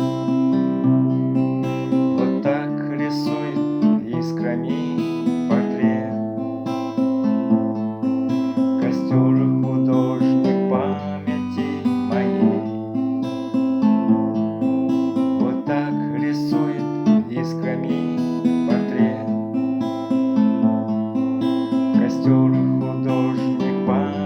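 Acoustic guitar playing an instrumental passage, strummed chords changing every second or two.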